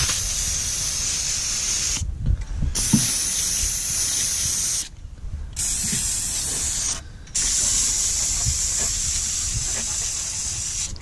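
Aerosol can of engine degreaser spraying onto an engine: a loud, steady hiss in four long bursts, with three short pauses about 2, 5 and 7 seconds in.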